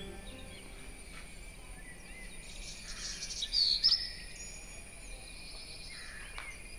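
Outdoor garden ambience: a steady high insect buzz, with a short run of bird chirps about three and a half seconds in.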